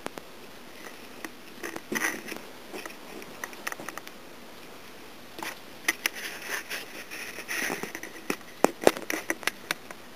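Close, intermittent rustling of a cat's fur and a fleece blanket, with scattered soft clicks. The rustling comes in spells about two seconds in and again through the middle, and a quick run of sharper clicks follows near the end.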